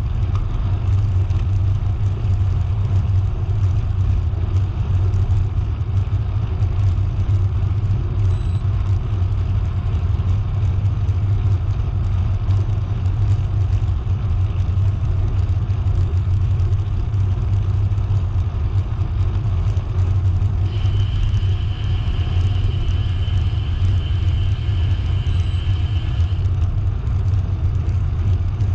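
Steady low rumble of wind on the microphone and tyre noise while riding a bicycle. A thin, steady high whine joins in for about five seconds some twenty seconds in.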